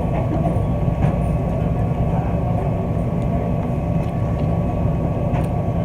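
Steady low mechanical hum with a faint steady whine above it, running evenly throughout.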